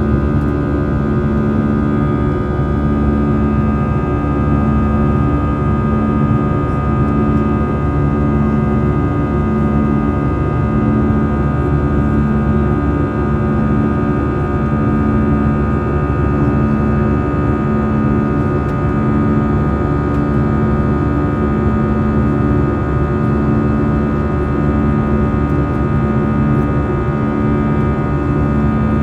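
Airbus A320 cabin noise heard from a window seat: a steady jet engine and airflow drone with a low hum that swells and fades about once a second.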